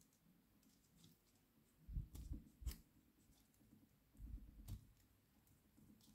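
Faint handling of a plastic action figure and its accessories: a few small clicks and low knocks in two short clusters, about two seconds in and again just after four seconds.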